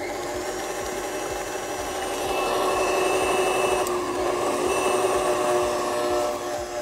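KitchenAid tilt-head stand mixer motor running steadily with a whine as it beats thick royal icing, getting louder about two seconds in as the speed is turned up toward high.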